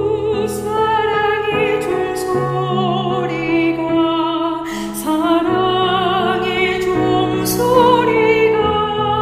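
A woman singing a Korean hymn with vibrato in a simple classical style, sustaining long notes over piano chords that change every second or two.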